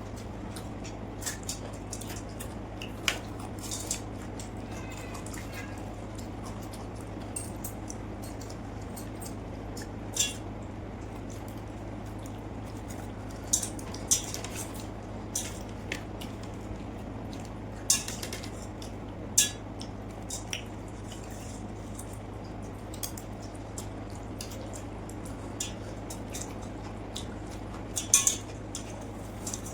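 Eating sounds from a plate of water rice and fish fry: scattered sharp clicks and clinks of dishes, irregular and a dozen or so standing out, with soft wet sounds of the food being handled and eaten, over a steady low hum.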